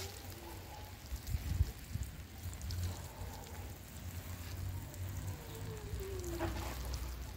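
Water showering from a plastic watering can's rose onto loose soil and seedlings, a steady rain-like spray, over a low rumble.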